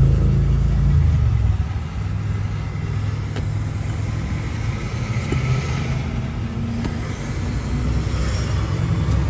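Handheld butane torch flame burning with a steady low roar as it heats vinyl repair compound. There is a single small click about three and a half seconds in.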